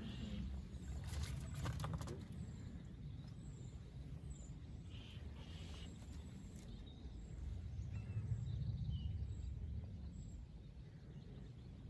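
Outdoor lakeside ambience: a low, steady rumble that swells twice, with faint, repeated high bird chirps and a few light clicks in the first couple of seconds.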